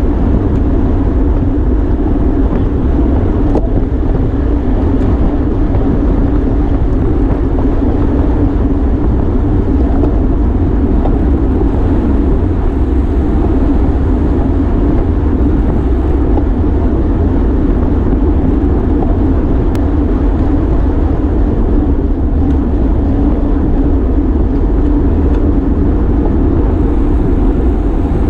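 Steady wind rush buffeting the microphone of a camera on a racing bicycle ridden at speed, with a steady low hum under it.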